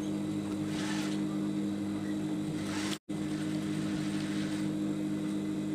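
Steady low electric hum, with faint scrapes of a screwdriver working on a sewing machine's needle-plate screws. The sound cuts out for a split second about three seconds in.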